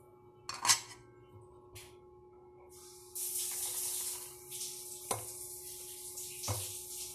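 Noodle soup poured from a mini electric cooker's pot into a ceramic bowl: a sharp clink of the cookware a little under a second in, then the splashing hiss of broth and noodles pouring from about three seconds in, with two knocks as the pot tips against the bowl.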